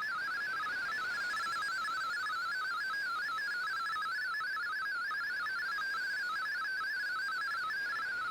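MFSK digital data signal received on a shortwave radio: a rapid, warbling stream of single tones hopping among closely spaced pitches, several changes a second, over a faint hiss.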